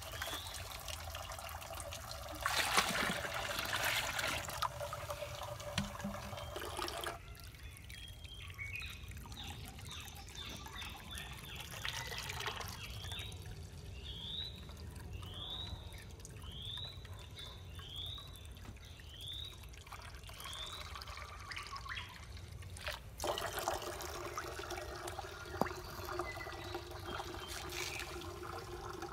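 Water trickling and pouring, louder in two stretches, one early and one near the end. In the middle, a run of short rising chirps repeats a little more than once a second.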